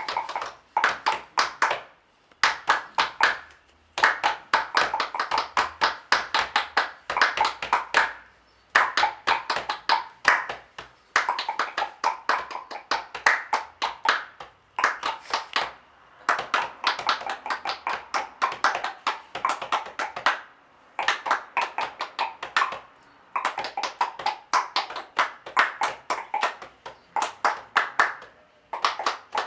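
Body percussion: rapid rhythmic hand claps and taps, played in phrases broken by short pauses.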